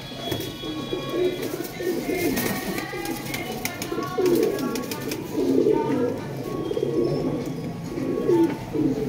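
Several domestic pigeons cooing, a steady chorus of low rising-and-falling coos, with a few sharp clicks about two to four seconds in.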